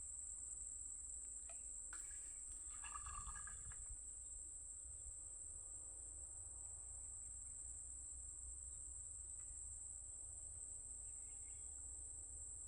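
Insect chorus, a steady high-pitched trilling that never breaks, heard faintly with a low rumble underneath.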